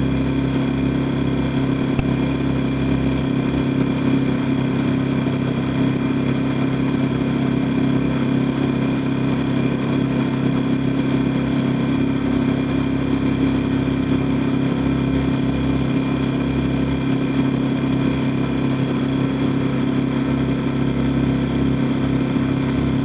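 Boat engine running steadily at low speed, a constant even hum with no change in pitch.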